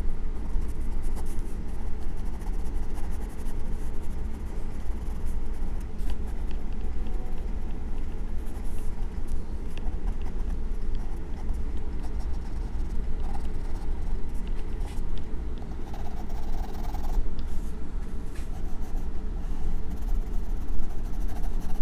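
Graphite pencil scratching on sketch-pad paper in short shading strokes, over a steady low rumble.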